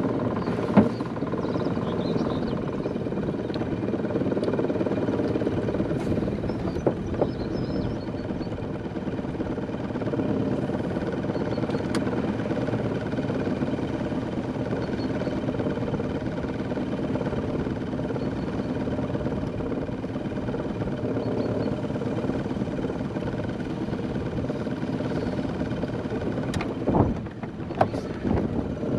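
Small tiller outboard motor on an aluminium boat, running steadily. A sharp knock sounds about a second in, and a few more clicks and knocks come near the end.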